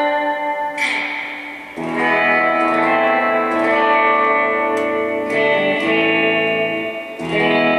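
Electric guitar, a Fender Jaguar, played through a Fender Bassman-clone tube amp and a '63-style spring reverb unit. Strummed chords ring out, with a hard pick attack about a second in and new chords struck about two seconds in and again near the end.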